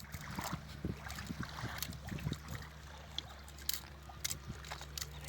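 Small twigs being handled and laid for kindling: a scatter of light cracks, clicks and rustles.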